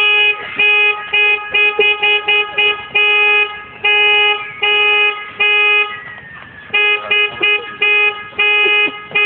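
Car horn honked over and over by an angry driver: a string of quick toots and longer blasts on one steady note, with a pause of about a second about two-thirds of the way in.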